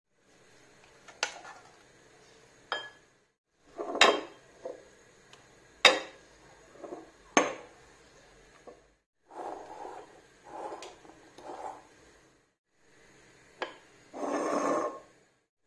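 A silicone spatula knocking against a saucepan and a glass bowl with several sharp clacks, then scraping and folding sounds in the glass bowl, the longest and loudest near the end, as melted chocolate is scraped out and whipped cream is folded in for a chocolate mousse.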